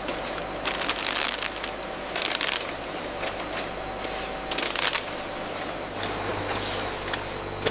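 Steady factory machinery hum with four short hissing bursts, a second or two apart, like air being let out.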